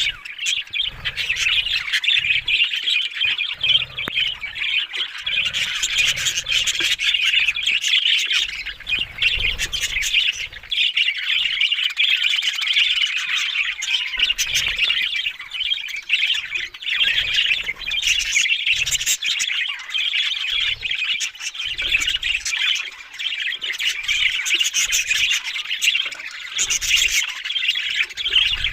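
Budgerigars chattering and warbling without a break, a dense high twittering full of quick chirps, with short low thuds now and then.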